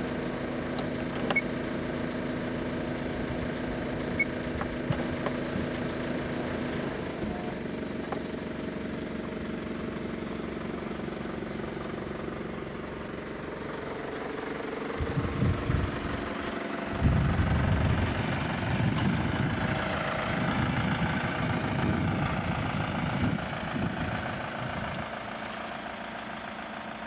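Nissan Elgrand's 3.0-litre turbo diesel engine running steadily, then a louder, uneven low rumble for about ten seconds from roughly halfway, broken briefly near the start of that spell, before it settles to a quieter run.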